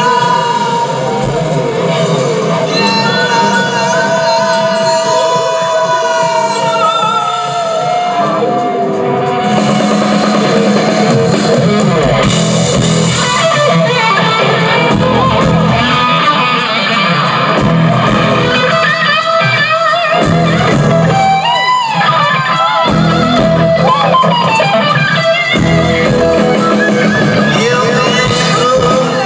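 Live rock band with electric guitar, bass guitar and drums, the guitar playing long bent and sliding notes.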